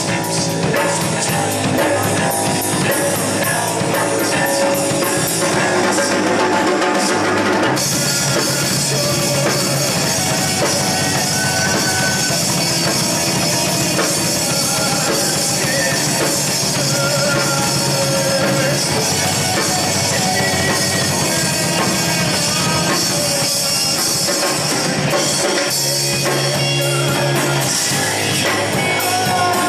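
A rock band playing live, with a full drum kit and guitar, loud and poorly recorded. The music changes abruptly to a new section about eight seconds in.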